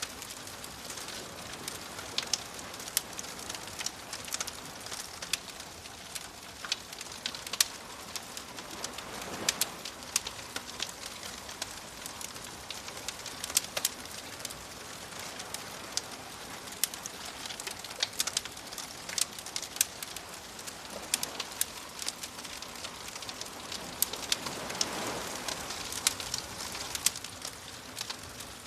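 Campfire crackling with frequent sharp pops, over soft waves washing in. The waves swell twice, about a third of the way in and again near the end.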